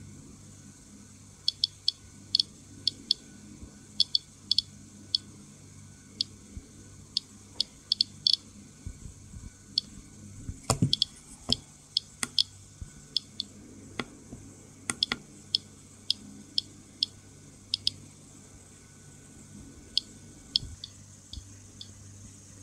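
Geiger-counter dosimeter clicking at random intervals, a couple of counts a second. This is the rate of ordinary background radiation, about 11 microroentgen per hour. A few louder clicks come in the middle.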